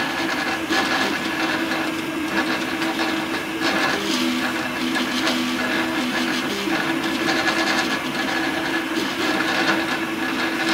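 3D printer at work: its stepper motors whine in steady tones that shift in pitch every second or two as the print head changes its moves, over a steady hiss.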